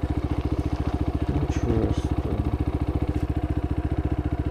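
Motorcycle engine idling, with a steady, even pulse of about eleven beats a second. A brief extra sound rises over it about a second and a half in.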